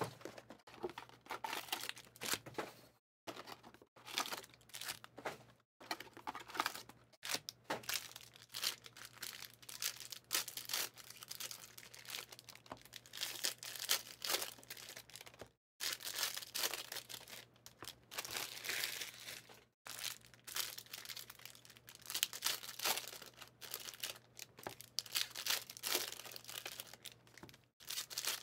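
Football trading card boxes being torn open and their foil-wrapped packs handled: irregular tearing and crinkling of cardboard and wrappers, in uneven rustles with short pauses.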